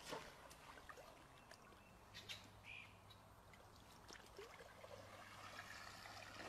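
Near silence: faint trickling and sloshing of shallow pond water as a wader sweeps a dip net through it, with a few small clicks and one short high chirp a little under three seconds in.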